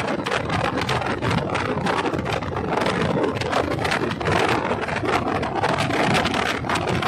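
Steady road and wind noise from a moving bus, with frequent small rattles and clicks and wind buffeting the microphone.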